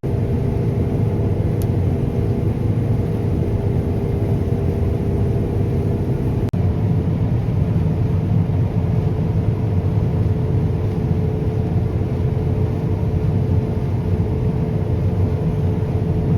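Large farm machine running steadily, heard as a deep rumble with a steady hum over it. About six and a half seconds in the sound drops out for an instant and resumes with a slightly different hum.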